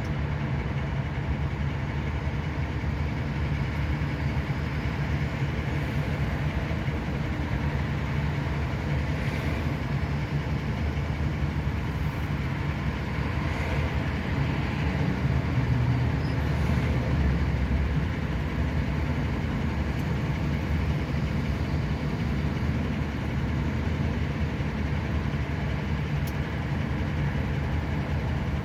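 Steady low rumble of road traffic, getting a little louder for a few seconds past the middle.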